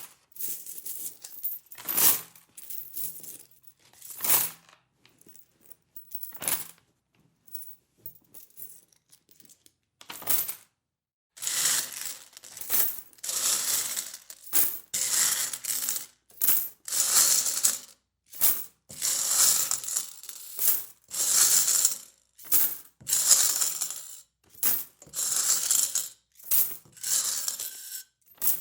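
Metal coins clinking: a few separate clinks over the first ten seconds, then repeated jingling bursts about once a second, as of coins being shaken or poured.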